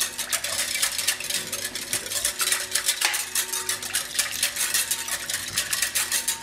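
Metal wire whisk beating a thin liquid in a glass bowl: a fast, even run of clicks as the tines strike the glass, several a second, stopping abruptly at the end.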